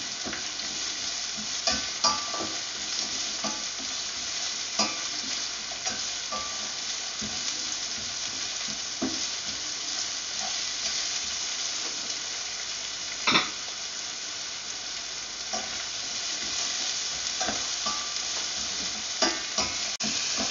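Sliced onions sizzling in hot oil in a non-stick sauté pan as they are stirred with a slotted spatula, with scattered scrapes and taps of the spatula against the pan. The loudest knock comes about two-thirds of the way in.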